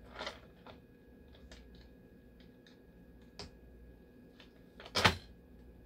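Scattered small clicks and taps of screws being fitted and turned by hand into a dialysis machine's plastic heat exchanger, with a louder clatter about five seconds in.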